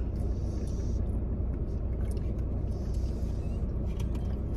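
Steady low rumble inside a parked car's cabin, with a few faint clicks and brief rustles over it.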